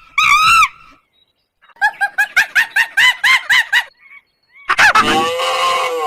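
Poultry calling: two loud honking calls, then a quick run of about a dozen short honks in two seconds. Near the end a longer, louder animal call begins.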